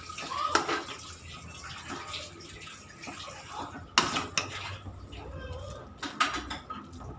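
A spoon stirring cooked vermicelli in a cooking pot: soft scraping and shuffling with a few sharp knocks of the spoon against the pot.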